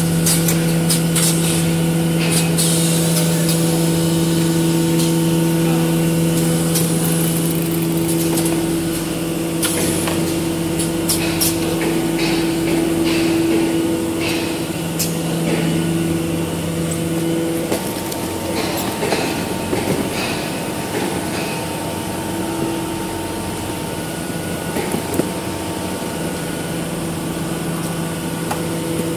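Facial tissue box packing machinery running: a steady motor hum with a low tone and its overtones, with scattered mechanical clicks and clatter. The hum eases about two-thirds of the way through and comes back near the end.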